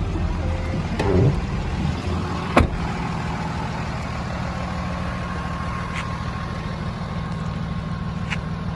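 Cummins turbo-diesel inline-six of a Dodge Ram 3500 idling steadily, with a steady high whine over the low engine hum. A single sharp knock sounds about two and a half seconds in.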